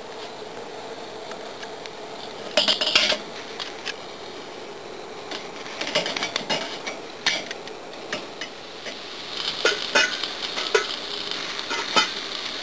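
Metal tongs clinking against a charcoal grill's grate and wire grill basket, in several short clusters of clatter over a steady hiss.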